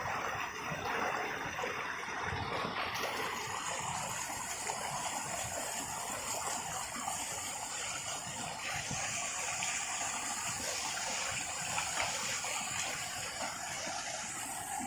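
Steady rushing water of a waterfall. A thin, steady high-pitched hiss joins above it about three seconds in.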